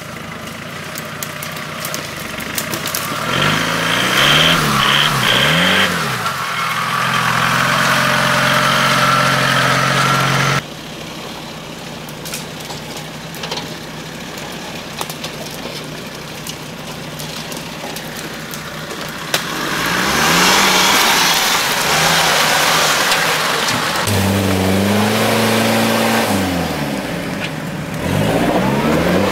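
Off-road 4x4's engine revving hard in repeated surges, its pitch rising and falling as it works through deep mud. The sound drops abruptly about a third of the way in, then the revving builds again twice later on.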